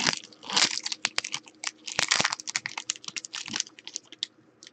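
Foil wrapper of a trading-card pack being torn and peeled open by hand: a dense run of sharp crackles, with longer rustling tears about half a second and two seconds in.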